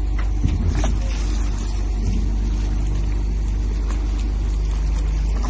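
A large engine running steadily at constant speed, with a sharp knock about a second in and a few fainter clicks.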